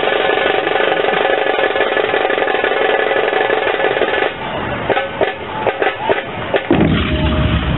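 Large brass hand cymbals (jhanj) clashing together in a continuous ringing din with a barrel drum (dhol). About four seconds in the steady clashing thins out to scattered single strikes, and a heavy low rumble comes in near the end.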